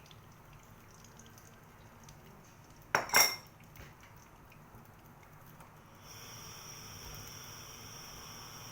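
Two quick, sharp clinks of a utensil against cookware, ringing briefly, about three seconds in. From about six seconds a steady hiss with a thin high whine sets in.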